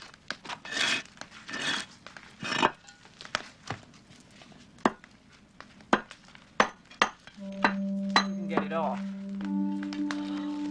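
A small hammer knocking and chipping at the clay-daubed bricks sealing a wood-fired kiln's top opening: irregular sharp knocks, with some scraping early on. From about seven seconds in, steady sustained music tones come in under the knocks.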